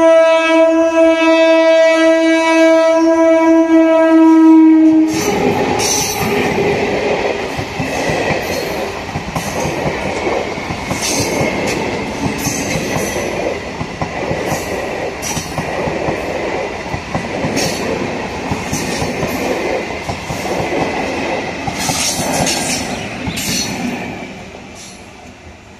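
Electric multiple unit local train sounding a long, steady horn that stops about five seconds in, followed by the coaches running past with wheels clattering and clicking over the rail joints, fading away near the end.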